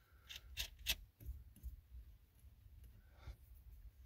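A few light, sharp metallic clicks, most in the first second, as wire ring terminals and a nut are fitted by hand onto a battery's threaded terminal stud, with fainter small taps after.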